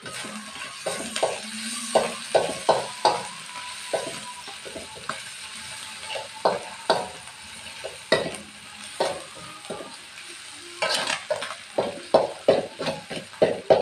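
Metal spatula scraping and knocking against a metal wok as scrambled egg and spice paste are stir-fried, over a steady sizzle. The strokes come in quick runs of two or three a second, thickest about two seconds in and again from about eleven seconds on.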